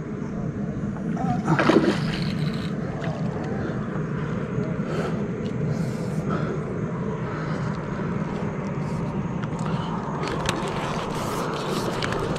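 Steady low rushing noise, with a louder burst of knocking about two seconds in and scattered clicks and knocks later and near the end.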